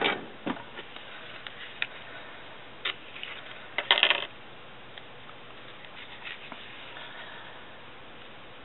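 Washi tape and paper being handled on a tabletop: a few small clicks and taps, then one short, louder rustling burst about four seconds in, followed by faint hiss.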